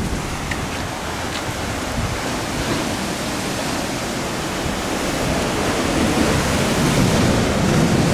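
Steady rushing of ocean surf, growing a little louder toward the end.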